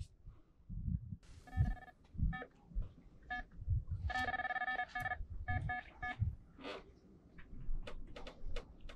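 Electronic carp bite alarm sounding a fish taking the bait: a few separate beeps, then an unbroken tone for about a second around four seconds in as line is pulled off, then quicker beeps. Low dull thuds come and go underneath.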